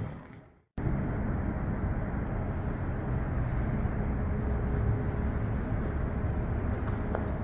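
Steady low rumble of city traffic. The sound fades out to silence briefly just under a second in, then returns unchanged.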